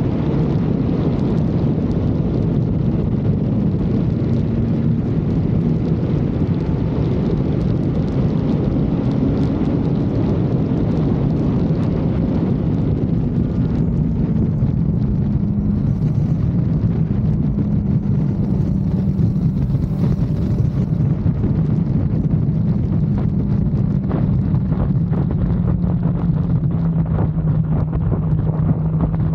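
Kawasaki Z900's inline-four engine running at a fairly steady road pace, its pitch drifting slightly up and down with the throttle, with wind buffeting on the microphone.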